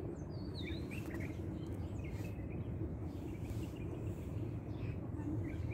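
Small birds giving a few short, high chirps now and then over a steady low rumble of outdoor background noise.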